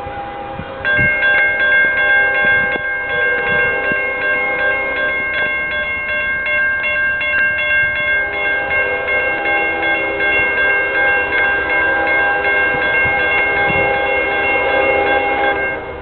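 Railroad warning signal for an approaching CSX train: a loud, steady chord of several tones that starts about a second in and cuts off abruptly near the end, its lower notes dropping out and returning about halfway through.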